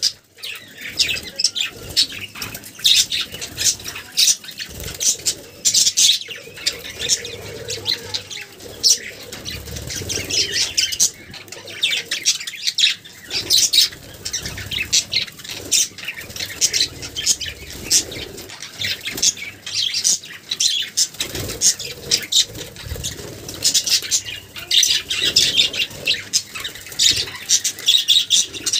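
Budgie bathing: its wings flutter rapidly in water, splashing in repeated spells of a few seconds each.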